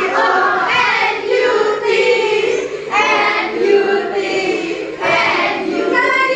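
A class of children singing an exercise song together, phrase by phrase, with short breaks between lines.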